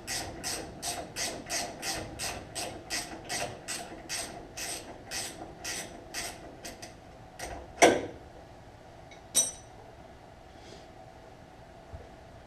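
Hand ratchet clicking in quick regular strokes, about three a second, as it backs a castle nut off the upper ball joint stud. The clicking stops about seven and a half seconds in, followed by two sharp metal clanks a second and a half apart.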